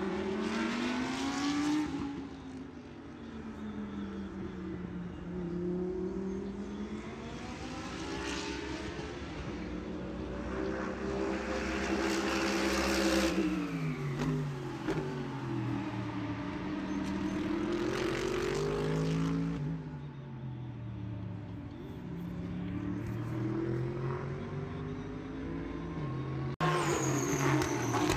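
Racing-car engine revving, its pitch climbing and falling in several slow swells, with an abrupt change to a louder stretch near the end.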